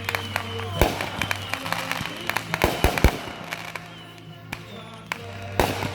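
Fireworks going off: several sharp bangs, a quick cluster of three about three seconds in and another near the end, over a country song playing on loudspeakers.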